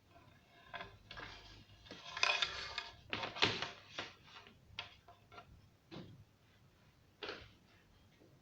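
Hands working on an old radio's opened chassis: irregular clicks, knocks and scrapes of parts being handled, busiest in the first half, then a few single clicks.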